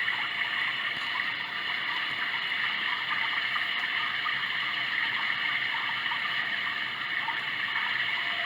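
Sound Oasis ambient sound machine playing a steady running-water track, an even rushing and gurgling like a stream.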